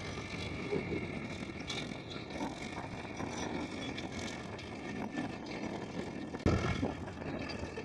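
Tractor engine running while ploughing, a steady mechanical drone, with a sudden thump about six and a half seconds in.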